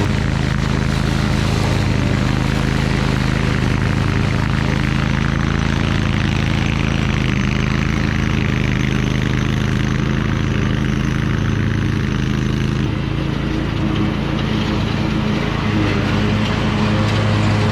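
Engine of a Toro Titan Max zero-turn lawn mower running steadily.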